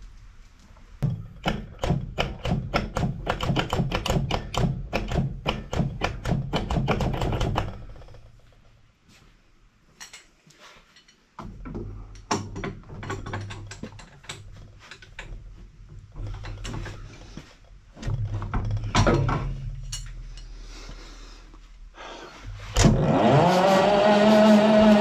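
Hercules ZXB engine of a military Hobart generator turning over on its electric starter without firing, a rapid even chuffing of compression strokes, cranked in three bursts to check for spark. Near the end a different machine starts suddenly and runs with a loud, steady hum.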